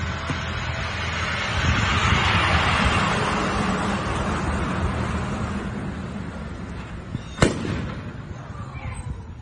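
A rushing noise that swells and fades over several seconds, then one sharp bang about seven and a half seconds in.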